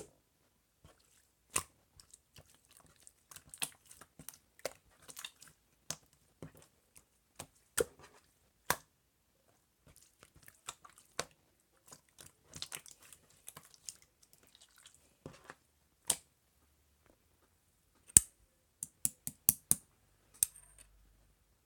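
Slime being pressed and squeezed by hand, giving scattered wet clicks and pops with quiet gaps between them, and a quick run of louder pops near the end.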